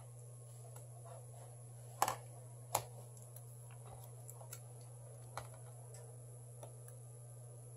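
Light clicks and taps of small tools and parts being handled on a repair bench, two sharper clicks about two and three seconds in and a few faint ticks after, over a steady low hum.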